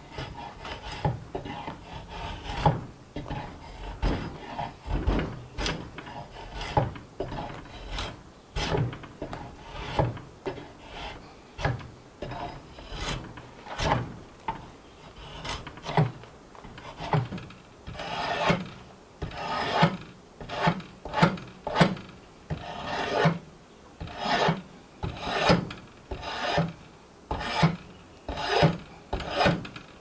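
A wooden door handle being shaped with a hand rasp, in repeated scraping strokes about one to two a second that grow stronger in the second half.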